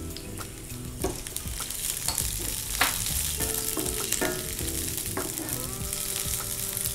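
Sliced onions and green and dried red chillies sizzling in hot oil in a shallow metal pan, stirred with a spatula that knocks against the pan a few times.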